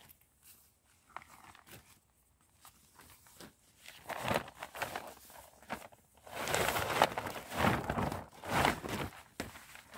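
A fabric stuff sack rustling and crackling as a sleeping pad is pulled out of it and the empty sack is shaken. The rustling starts about four seconds in and is loudest in the last few seconds.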